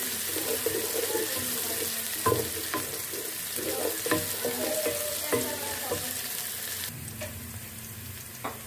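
Chopped onion and green chilli sizzling in oil and butter in a metal pot, stirred with a wooden spoon that knocks and scrapes against the pot several times. The sizzle turns quieter about seven seconds in.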